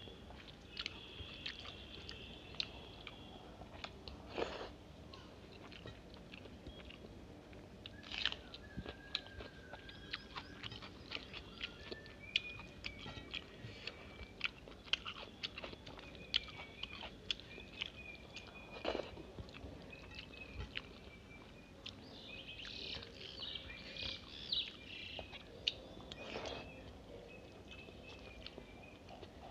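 Close-up eating sounds: chewing and mouth clicks while rice mixed with egg curry is eaten by hand, with fingers working the rice on a steel plate. Birds chirp faintly in the background, mostly in the second half.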